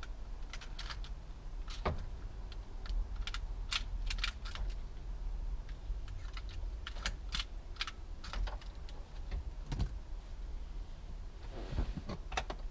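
Irregular light clicks and rattles of plastic and metal parts being handled and fitted at a car's steering column around the ignition cylinder housing, over a low steady hum.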